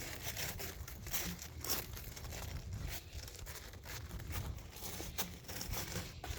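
Irregular crunching and crackling of crusted snow, over a low steady rumble.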